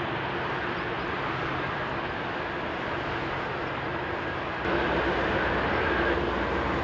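Boeing 747-8 freighter's four GEnx jet engines running as it taxis: a steady rumble with a faint whine. About two-thirds of the way in the sound suddenly gets louder and deeper.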